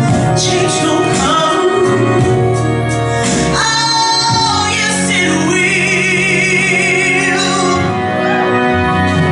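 A female soul singer performs live over a band. In the second half she holds one long note with vibrato, the kind of held climax that ends a ballad.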